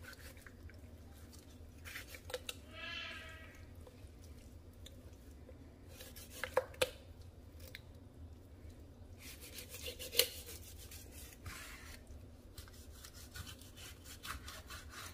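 Chef's knife cutting up a raw whole chicken on a plastic cutting board: quiet slicing and rubbing through skin and joints, with a few sharp clicks of the blade or bone against the board, the loudest about ten seconds in. A brief squeaky tone sounds about three seconds in.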